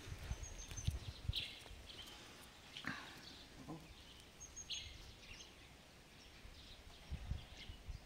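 Birds chirping here and there in the open air, short high calls over a faint background, with one falling call about three seconds in. Low rumbles on the microphone come near the start and again near the end.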